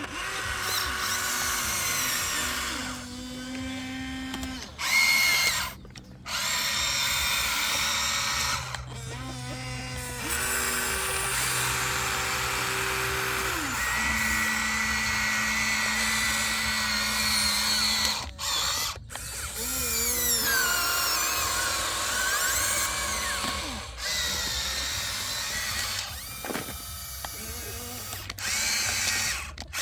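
Small electric motors whining, the pitch stepping up and down every few seconds, with frequent abrupt cuts between takes.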